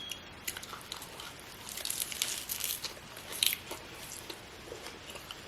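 A person chewing crunchy food: irregular small crunches and crackles, a little louder and denser near the middle.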